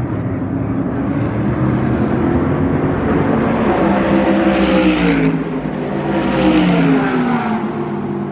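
Corvette C8.R race car's V8 engine running: a steady note at first, then the pitch climbs for a couple of seconds, breaks off about five seconds in, comes back and glides down near the end.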